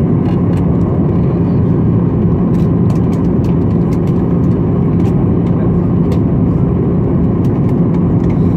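Steady cabin noise of a Boeing 737-800 on its descent, heard from a window seat beside the wing: a loud, even drone of the CFM56 engine and airflow with a constant hum running through it. Scattered faint ticks sit on top of the drone.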